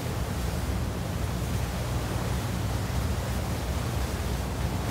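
Steady wind rumbling over the microphone with the wash of the sea along a rocky shore, an even rushing noise with no distinct events.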